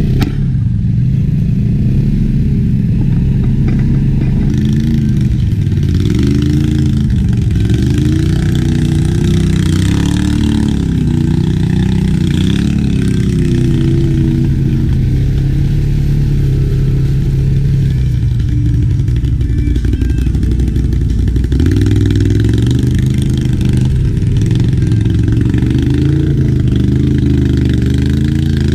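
ATV engine revving up and down as the throttle is worked, its pitch rising and falling again and again over a steady low engine drone.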